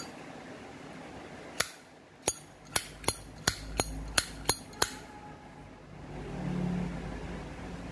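A 1989 Zippo lighter's hinged lid being flipped open and snapped shut over and over: about nine sharp clicks in three seconds. A low hum swells near the end.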